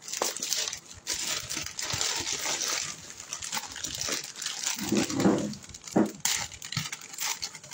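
Plastic bag and bubble-wrap packaging crinkling and rustling as it is handled, with two short, louder low sounds about five and six seconds in.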